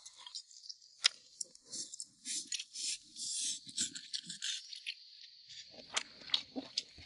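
Insects chirping steadily in the background while someone eats: several sharp clicks, the loudest about a second in, and a run of soft chewing in the middle.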